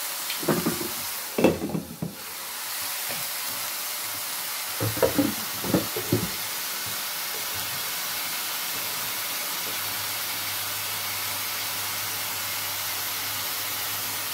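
Chicken wings sizzling steadily in a pot on a gas hob, a constant hiss. A few clattering knocks sound in the first two seconds and again about five to six seconds in.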